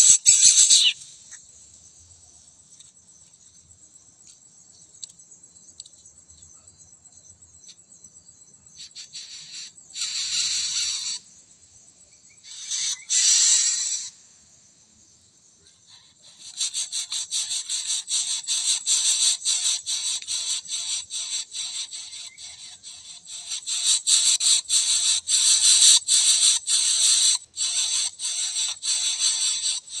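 Coucal nestlings' raspy begging calls: a few short rattling bursts, then a long run of fast rasping from about halfway through. A steady high insect whine sits underneath.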